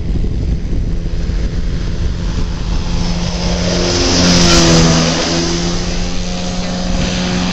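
Engine and propeller of a flex-wing ultralight trike droning as it makes a slow, low flyby. It grows louder to a peak about halfway through, and its pitch drops as it passes.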